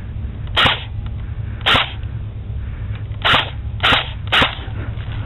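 Airsoft gun firing five single shots, sharp snapping cracks at uneven intervals: two about a second apart, then three close together near the end.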